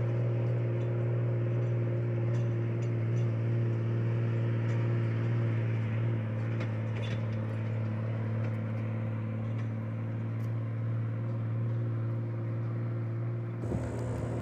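Heavy truck engine running steadily under load as the truck climbs a steep dirt hill, a constant low hum. It changes abruptly near the end.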